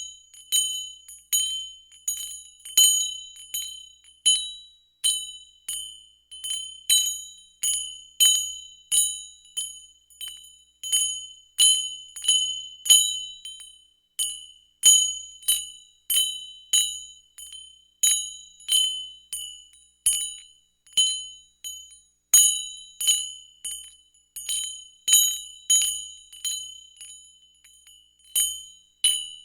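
Small bell ringing over and over with a high, bright tone, about one and a half strikes a second at an uneven pace. Each ring fades quickly, and there are short pauses about halfway through and again about two-thirds of the way in.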